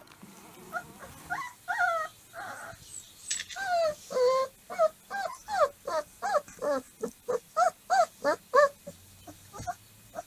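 Young Dogo Argentino puppy crying: a rapid series of short, high-pitched whines, each rising and then falling in pitch, coming faster and louder through the middle and dying away near the end.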